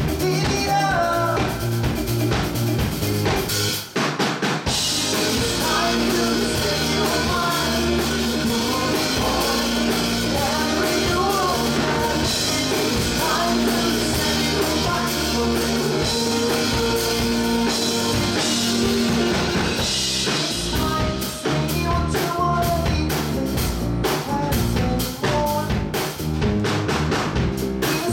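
Live rock band playing through a PA: drum kit, two electric guitars and a synthesizer covering the bass part, with held notes over a steady beat. The low end drops out briefly about four seconds in, then the full band comes back.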